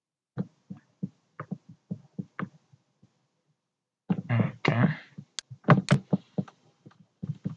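Computer keyboard keys and mouse buttons clicking in irregular, separate taps while code is typed and edited. A louder, noisier sound of about a second comes a little after four seconds in.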